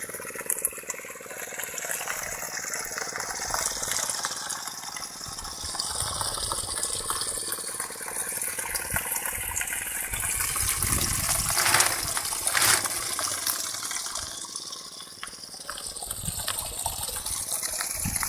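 Pumped water gushing and splashing steadily, swelling louder in the middle, with two brief louder surges about twelve seconds in.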